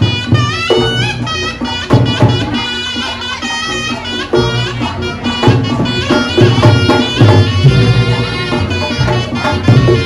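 Reog Ponorogo ensemble music: a reedy slompret shawm plays a bending, wavering melody over steady drumming.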